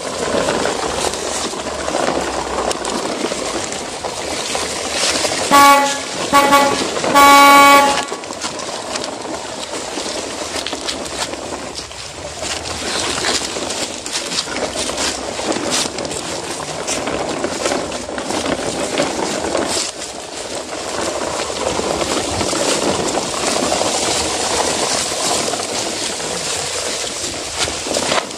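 A string of plastic toy dump trucks being dragged over dry leaves and dirt, wheels and bodies rustling and rattling steadily. About six seconds in, a vehicle horn gives three toots, the third held longest.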